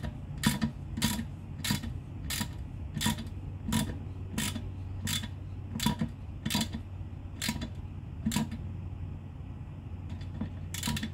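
Wrench clicking in an even rhythm, about a dozen clicks each roughly two-thirds of a second apart, then one more after a short pause near the end. The wrench is snugging the nut that holds a TPMS tire-pressure sensor's valve stem, which should be tightened only lightly because the sensor is plastic.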